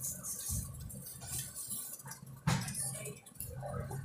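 Thin plastic bags crinkling and rustling as they are pulled and crumpled by hand, with one sharp snap about two and a half seconds in.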